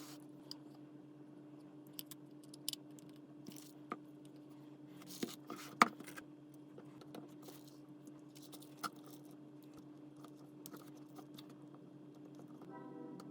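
Faint scattered clicks and taps of small tools and phone parts being handled, over a steady low hum.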